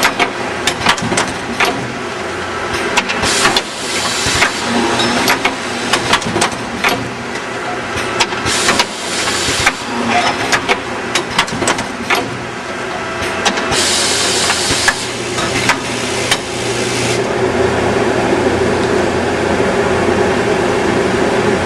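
Sigma automatic feed drilling machine running a programmed cycle on a wooden strip: many sharp clacks from its pneumatic clamping and feed, several bursts of air hiss, and a steady motor hum as it drills the holes.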